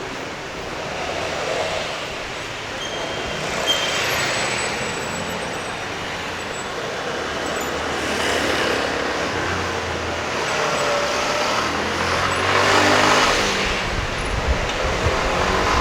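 Urban road traffic: vehicles passing one after another, swelling about four seconds in, again around eight seconds, and loudest near thirteen seconds, with an engine's low hum under the last pass.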